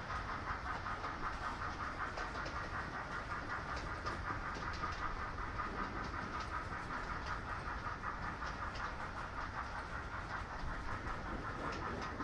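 Model passenger cars rolling slowly along model railroad track: a steady whirring rumble of small metal wheels on rail, with occasional light clicks.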